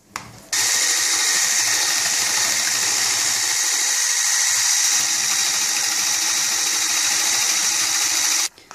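Electric whisk running steadily while whipping egg whites into a foam. It starts suddenly about half a second in and cuts off near the end.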